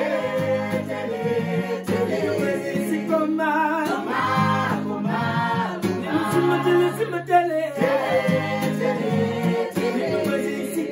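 Several voices singing together in harmony over a strummed acoustic guitar.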